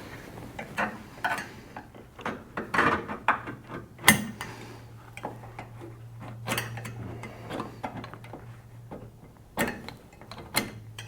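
Irregular light metal clicks and scratches of a steel scribe being worked around a subframe connector held against a car's underside, with a sharper knock about four seconds in and a faint steady hum underneath.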